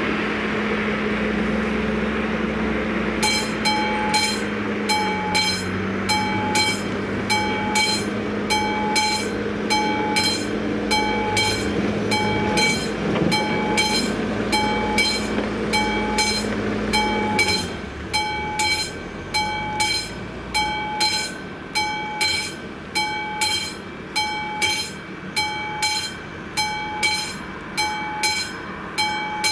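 Level-crossing warning bell on the AŽD 71 warning lights ringing steadily about once a second, starting about three seconds in: the crossing signalling an approaching train. Under it a steady low engine hum stops abruptly a little past halfway.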